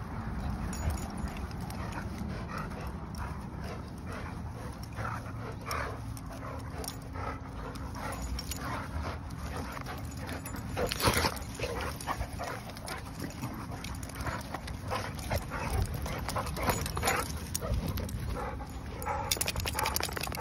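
Dogs play-wrestling, making short, scattered dog noises throughout, the loudest about eleven seconds in.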